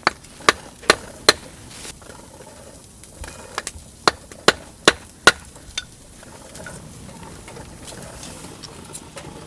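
Sharp knocks in two runs of four, about 0.4 s apart, one run at the start and one about halfway through, with a few weaker taps between: something hard struck repeatedly, like hammering or chopping.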